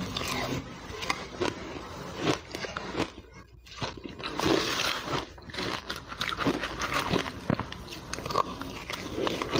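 Crushed ice being crunched and chewed in the mouth: a dense run of sharp, irregular crunches, with a short lull a little past three seconds.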